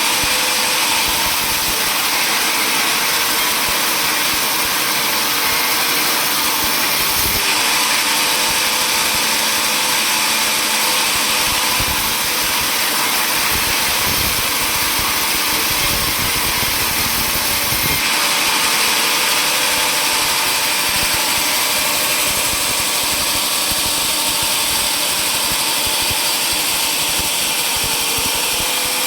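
Sawmill machinery running steadily: an even mechanical noise with a thin high whine over it, shifting slightly about seven and eighteen seconds in.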